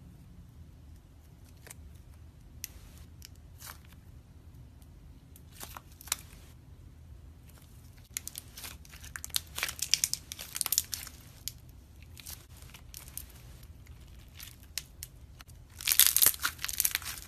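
Glossy metallic gold slime being stretched and kneaded by hand, giving sticky clicks and crackles. They come sparsely at first, thicken into dense crackling midway, and are densest and loudest near the end.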